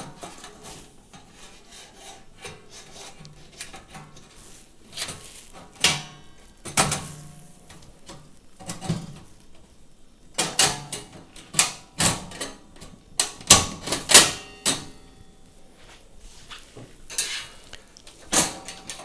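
Flue trim of a range cooker being located onto screws in its keyhole slots: irregular knocks and clicks, most of them in a quick run about halfway through.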